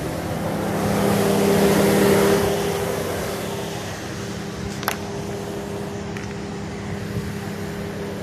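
Jeep Wrangler engine idling with a steady hum. A broader rushing noise swells and fades between about one and two and a half seconds in, and a single sharp click comes near five seconds.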